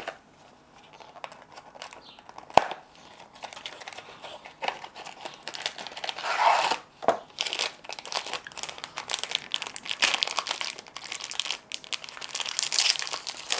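Crinkling and tearing of a Glico Pocky snack package being opened, with a single sharp click about two and a half seconds in.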